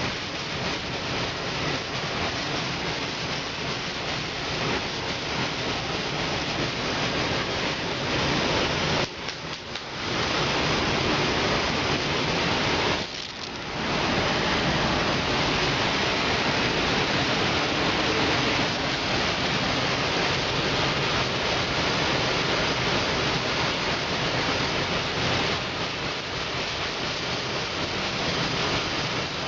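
Power sander working a car fender panel, a steady rushing noise that stops briefly twice, about nine and thirteen seconds in.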